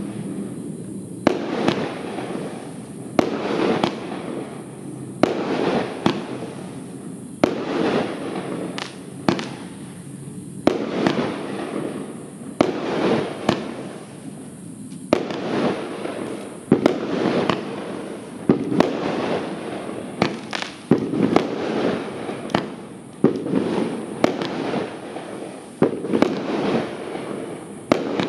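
Consumer firework battery (Argento Blütenstaub) firing shot after shot: sharp launch and burst bangs, one to two a second, with hissing and crackling from the bursting stars between them.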